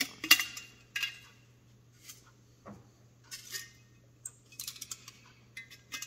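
Cleco pliers setting spring clecos into thin aluminium brackets: sharp metallic clicks and clinks as the clecos snap in and the aluminium parts knock together, in scattered clusters.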